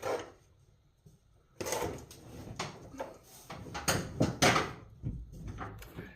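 Handling noise of wiring and a connector being worked through vinyl floor covering: rustling and scraping with several sharp knocks and clicks, the loudest about four seconds in.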